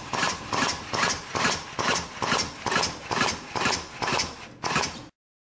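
Grail two-stroke prototype engine being turned over by a DeWalt drill on a cold spin, not firing, making a rhythmic chuffing at about two and a half pulses a second; the drill has barely enough torque to turn it over. The sound cuts off suddenly about five seconds in.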